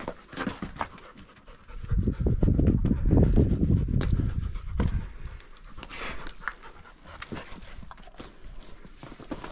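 A dog panting hard close to the microphone, loudest from about two to five seconds in, with small scuffs and clicks of feet on loose rock.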